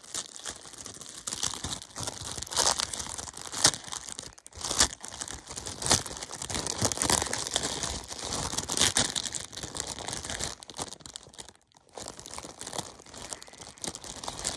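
Clear plastic packaging of a hair bow crinkling and crackling as it is handled and pulled at by hand, in uneven crackles with a short pause about two-thirds of the way through.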